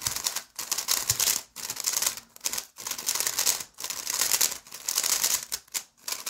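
MoYu WR M 2021 Maglev 3x3 speed cube being turned fast by hand: dense runs of plastic clicking and clacking from the turning layers, broken by short pauses. The cube is new, not yet broken in and without added lube.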